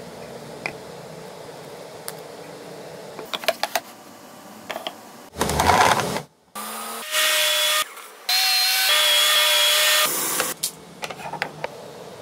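Table saw cutting spline slots across the corner of a plywood box held in a V-shaped jig: three loud cutting bursts, each about one to two seconds long, with a steady whine under the cutting noise that starts and stops abruptly. Light taps and clicks of handling the wood come before and after.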